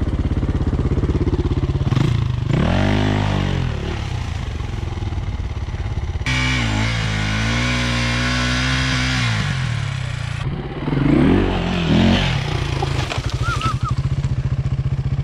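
Enduro dirt bike engines: one idles steadily while another revs up and down in several bursts as it works up a steep dirt slope. The pitch rises and falls with each burst, with the hardest revving a little past halfway.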